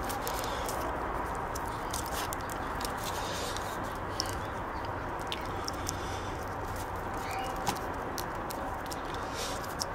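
Electrical tape being wound by hand around a battery charger's transformer: scattered small crackles and clicks over a steady background hiss.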